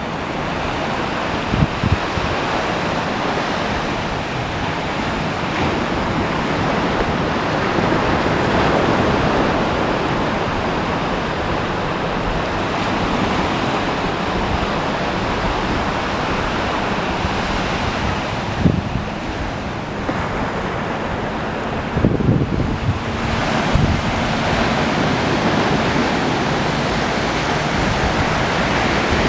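Ocean surf breaking and washing up on a beach, a steady rushing that swells and eases, with a few brief low thuds of wind hitting the microphone.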